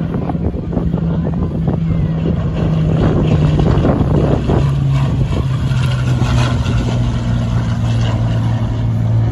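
Propeller-driven warbird's piston engine droning as the plane flies past. The pitch of the drone drops about halfway through as it passes by.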